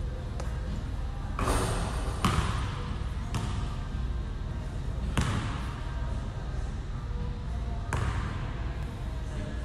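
Gym background noise: a steady low hum with scattered knocks and thuds at uneven intervals, the loudest about a second and a half, two seconds and five seconds in.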